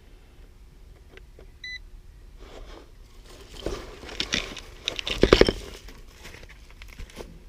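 A short electronic beep from a clamp meter being set to read inrush current. It is followed by a few seconds of clicking and rattling handling noise, loudest about five seconds in.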